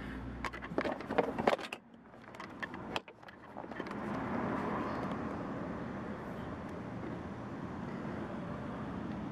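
A few plastic clicks and rattles as a car's cabin air filter is slid out of its housing behind the glovebox, then a steady background noise for the rest.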